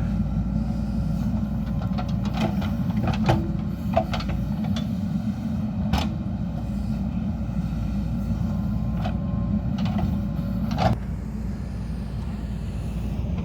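JCB 3DX Super backhoe loader's diesel engine running steadily under load while it digs, with scattered clanks and knocks from the bucket and arm.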